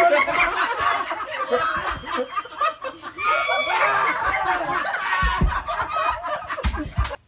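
People laughing loudly and continuously, with a few low thumps near the end before the sound cuts off suddenly.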